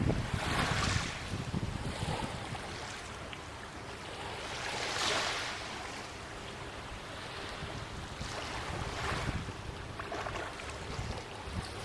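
Small waves washing onto the shoreline, rising to a hiss about every four seconds, with a light wind rumble on the microphone.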